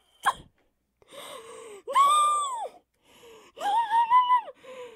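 A person's wordless high-pitched vocal noises of dismay: breathy gasps, then two long squeals, one rising and falling about two seconds in and a wavering one near the end.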